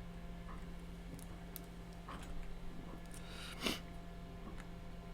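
Light clicks and taps of multimeter probes on transistor legs while checking for solder bridges, one sharper click about two-thirds of the way through, over a steady low electrical hum.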